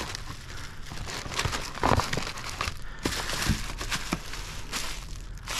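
Mailing envelope being torn open by gloved hands and the plastic-wrapped package inside crinkled: an irregular run of crackles and rustles.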